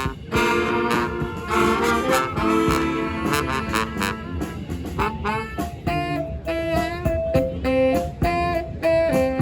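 Street brass band playing live, horns and saxophones together; held chords give way to short, punchy repeated notes about halfway through.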